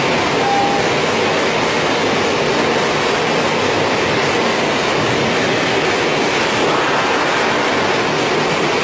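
Steady, loud running noise of a french fries production line's machinery, its stainless steel mesh-belt conveyors and processing equipment operating continuously without a break.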